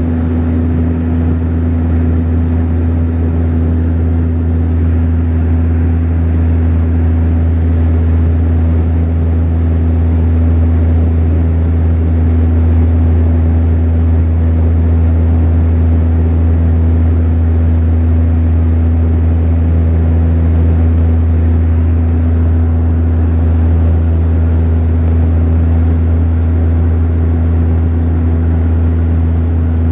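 Saab 340B cabin drone: the twin General Electric CT7 turboprops and their propellers running steadily, a loud constant low hum with a steady higher tone above it and airflow noise underneath.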